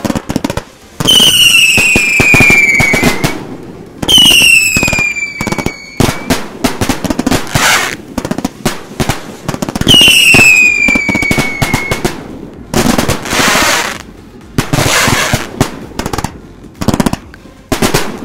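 A Fans XL 1.2-inch aerial firework cake firing shot after shot, with sharp launch thumps and sky breaks. Three falling whistles of about two seconds each come near the start, about four seconds in and about ten seconds in. Later there are bursts of hissing crackle.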